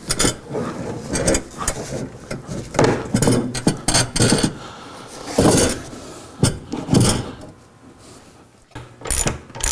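Duracell dual-purpose AGM car battery being lowered into a battery tray and shifted into position by hand: a series of irregular knocks, clunks and scrapes of the battery case against the tray.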